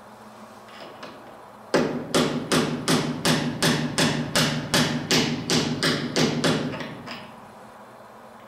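About fourteen evenly spaced hammer taps on metal, a little under three a second, each with a short ring, working a part into place on a Snap-on VR300 valve grinder's spindle assembly during reassembly.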